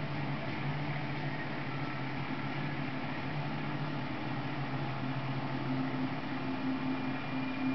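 Steady low droning hum over hiss, played through a television speaker, with a second, slightly higher hum growing stronger about two-thirds of the way through.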